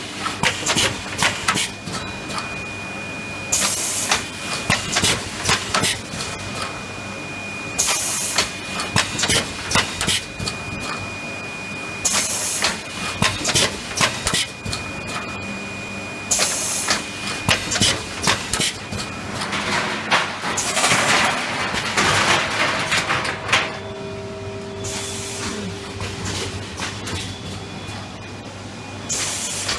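Automatic PET bottle blow moulding machine running: rapid clattering of its moving parts and pneumatic valves, with a sharp hiss of compressed air venting about every four seconds as each set of bottles is blown. A steady high whine runs under it for the first two-thirds.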